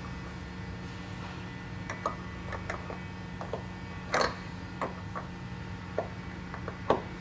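Open-end wrench clinking on the bolts and metal C-clamp of a tonneau-cover mount as the bolts are tightened: about a dozen small, irregular metallic clicks, the loudest about four seconds in and near the end, over a steady low hum.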